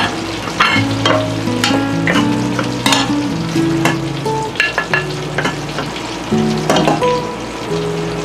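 Cracker-crusted fish fillets frying in butter in a pan, sizzling steadily, with repeated clinks and scrapes of a wooden spoon against the pan and ceramic plates as green beans are served.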